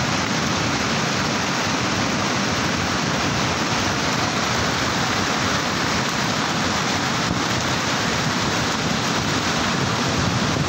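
Loud, steady, unbroken rush of a cold lahar flood: muddy volcanic floodwater churning down a river channel.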